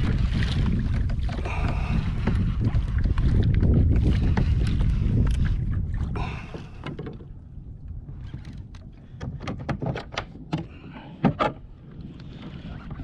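Kayak hull rushing through choppy sea water, with wind buffeting the microphone, as a hooked yellowfin tuna tows the kayak. After about six seconds this gives way to quieter water with a run of scattered sharp clicks and knocks.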